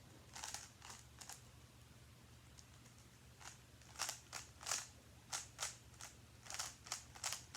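A GAN 356 RS 3x3 speed cube being turned by hand, its plastic layers clicking with each quick turn. There are a few turns in the first second, a pause of about two seconds, then a fast run of turns through the second half.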